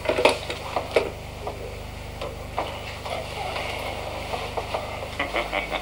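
Irregular clicks of typewriter keys being struck, thick in the first second, sparse in the middle and bunching up again near the end, over a steady low electrical hum.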